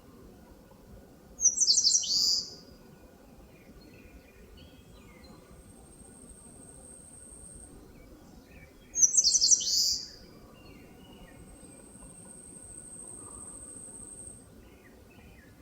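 Eastern crowned warbler singing two short, bright song phrases of quick, high repeated notes, about seven seconds apart. Between the phrases come long, thin, steady high-pitched hisses and faint distant chirps.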